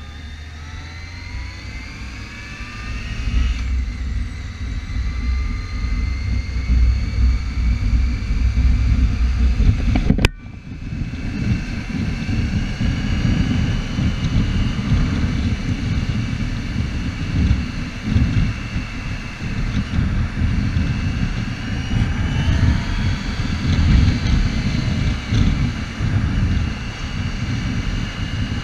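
Yamaha motorcycle's engine running at freeway speed under heavy wind rumble on the microphone. Its pitch rises as it accelerates in the first few seconds, then holds steadier while cruising. There is a sharp click about ten seconds in.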